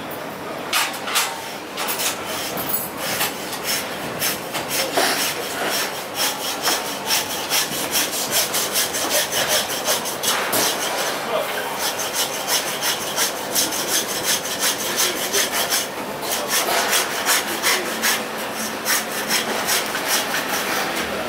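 Butcher's hand bone saw cutting back and forth through the rib bones of a beef forequarter, in even strokes about two a second. There is a short pause about three-quarters of the way through before the sawing resumes.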